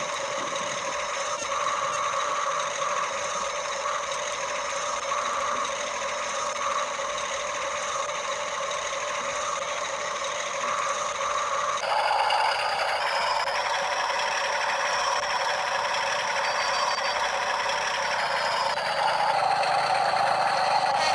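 Small electric motors and plastic gearboxes of radio-controlled toy construction vehicles running with a steady whirring rattle. The pitch and tone shift abruptly about twelve seconds in and again near the end, as different motors start and stop.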